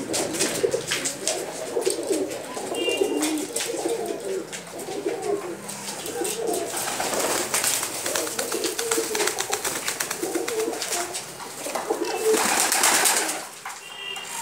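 Domestic pigeons cooing in a loft, with low warbling coos overlapping one after another. Wings flap in the middle, and a loud rustling flurry comes near the end.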